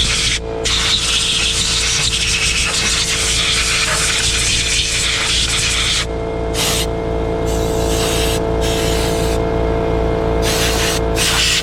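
Compressed air blasting from a blow gun, one long hiss of about six seconds and then several short bursts, blowing debris off the engine around the injector ports. An air compressor runs underneath with a steady hum.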